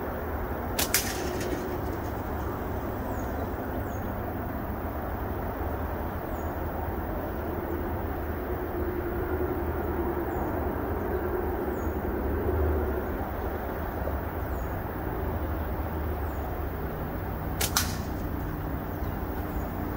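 Two sharp snaps about sixteen seconds apart, each a slingshot shot: the SniperSling .5 flat bands of a Prime Fork PFX-C slingshot whipping forward on release. Between them a bird repeats a short, high, falling chirp every second or two over a steady low background noise.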